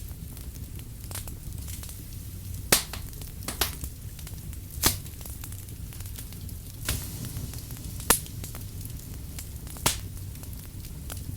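Firewood burning: a steady low rumble of the flames with scattered small crackles and about five loud, sharp pops of the wood.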